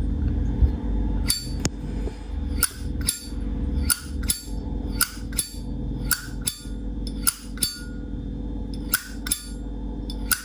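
Vintage 1981 Zippo lighter's lid snapped open and shut over and over: sharp metallic clicks with a short ring, mostly in pairs about a second apart. This is the lighter's original lid sound, not modified. A steady low hum runs underneath.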